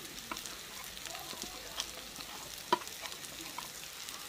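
Onions, tomatoes and green chillies sizzling in hot mustard oil in a metal wok while a spatula stirs in red chili powder. There is a steady frying hiss, with a few sharp clicks of the spatula against the pan, the loudest about two thirds of the way through.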